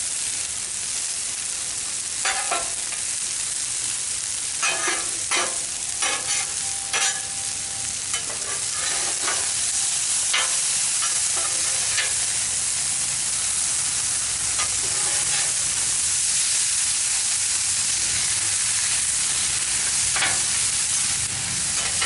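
Stir-fry food sizzling on a hot Blackstone flat-top griddle, a steady frying hiss that swells slightly partway through. Utensils clack and scrape on the steel surface, mostly in the first half, as the food is stirred and turned.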